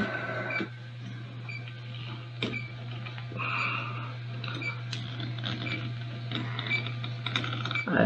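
Scattered light clicks from hands working a plastic water valve on PVC piping, over a steady low hum.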